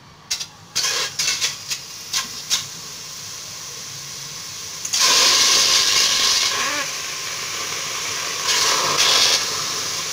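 Cut tripe and lung hitting a hot, dry aluminium pot: a few sharp knocks, then about five seconds in a loud steady sizzling hiss as the meat sears and starts to give off its water as steam.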